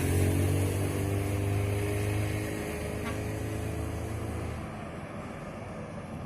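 A motor vehicle's engine running close by, its pitch dropping slightly, then fading away about four and a half seconds in.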